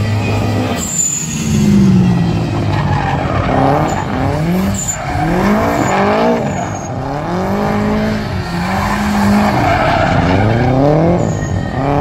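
Drift car's engine revving up and dropping back again and again as it slides sideways, with its rear tyres screeching and skidding on the tarmac.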